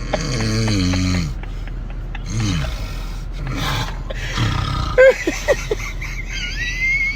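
A person snoring: a long, low snore falling in pitch, then shorter snores, and in the last couple of seconds a high squeaky whistling in the breath, like a creaking door.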